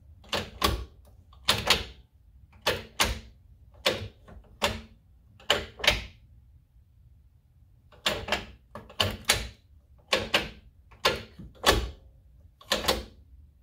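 Saab manual gear shifter being moved through the gears, knocking into each gear in quick pairs of clicks with a short pause about halfway. The shifter has just been fitted with a billet reinforcement clamp and base bushings to take out play in the shift cable, and it feels a lot more secure.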